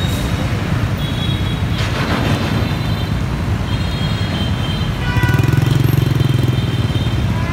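Traffic at a busy street intersection: motorbike engines and a cargo truck running past, a steady low rumble that swells into a louder pulsing engine drone about five seconds in.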